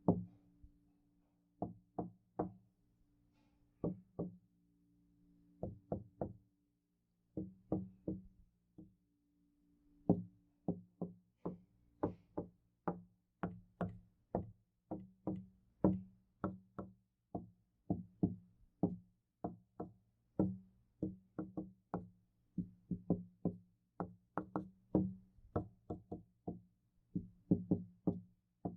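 Knocking on a door, each knock sharp with a low ring from the door. For the first ten seconds the knocks come in short groups of two or three with pauses between, then they run on steadily at about two knocks a second.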